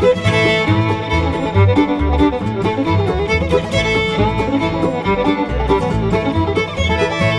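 Upbeat bluegrass-style background music led by fiddle, over a steady bass beat.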